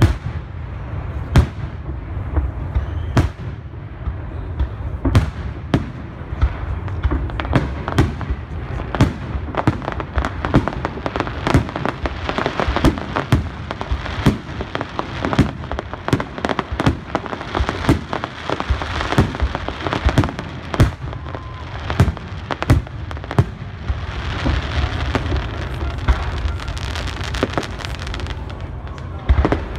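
Aerial fireworks shells bursting in a string of sharp bangs, thickening about a third of the way in into a dense run of overlapping reports and high crackle, then thinning near the end.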